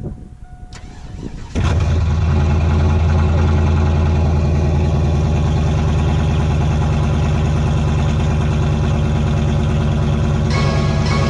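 Cammed 2000 GMC Sierra's 5.3-litre V8 on a cold start: it catches about a second and a half in, then idles loud and choppy. The note brightens near the end.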